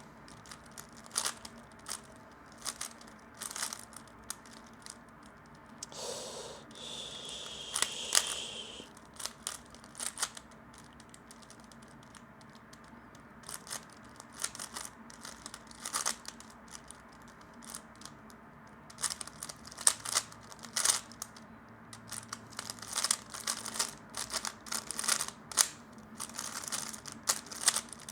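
3x3 Rubik's cube being turned fast by hand during a speedsolve: plastic layers clicking and clacking in quick irregular flurries with short pauses. About six seconds in, a different noise lasts about three seconds, with a steady high tone through it.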